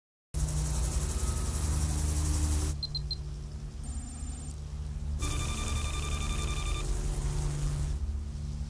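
Electronic sound design for a targeting display: a steady low drone with stretches of high static hiss. Three quick high beeps come just before three seconds in, then a short high tone, then a steady electronic data-style tone lasting about a second and a half.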